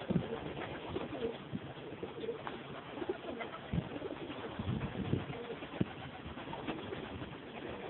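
A flock of feral pigeons cooing low and repeatedly, with scattered short knocks and rustles among the calls.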